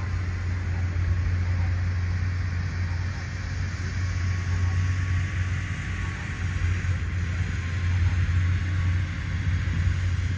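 Steady low rumble of distant road traffic, with no distinct passing vehicle.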